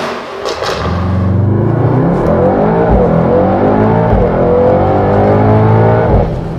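Mercedes-AMG GT 4-door coupe's engine accelerating hard, its pitch climbing and dropping back at upshifts about three and four seconds in, then climbing again before cutting off.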